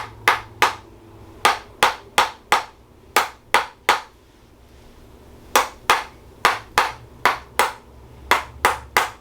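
A spring-loaded chiropractic adjusting instrument clicking as it taps along the spine, with sharp strikes in quick runs of two to four, about three a second. There is a pause of over a second near the middle.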